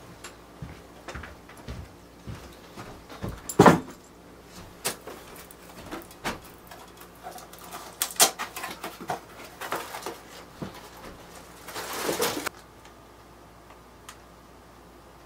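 Footsteps and the knocks and clatters of a bag and household items being set down and handled on a wooden kitchen counter, with one louder thump about three and a half seconds in and a short burst of noise about twelve seconds in.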